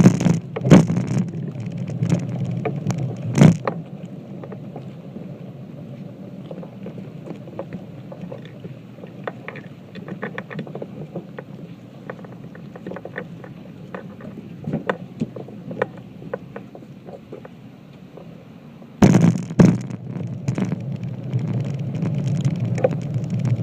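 Small ferry boat's engine running steadily as a low hum, with scattered knocks and clicks; about 19 seconds in the sound suddenly grows louder and fuller.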